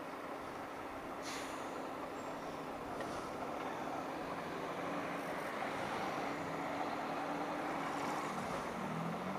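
Honda CG 160 Start's single-cylinder engine running on the move, with wind and road noise. There is a brief sharp noise about a second in.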